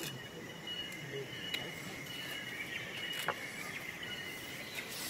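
Insects calling steadily in the surrounding forest, a continuous high two-toned drone, with a few faint clicks.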